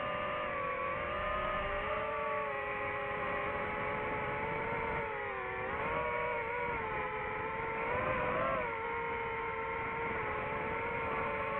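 DJI FPV drone's motors and propellers whining steadily, the pitch rising and falling as the throttle changes, with a brief rise about eight seconds in.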